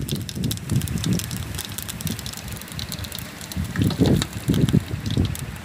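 Crackling and popping from a wood cooking fire and the hot oil with whole spices in the pot above it, over a steady hiss, with irregular low rumbles of wind on the microphone.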